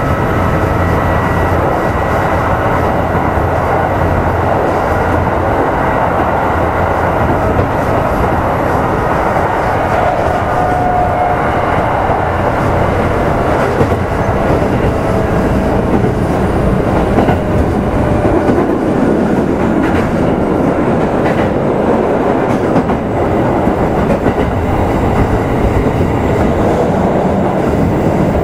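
Kintetsu 1810-series electric train running, heard inside motor car Mo 1826: a steady rumble of wheels on rail with occasional clacks over rail joints and faint tones from the running gear, one of which shifts slightly in pitch about ten seconds in.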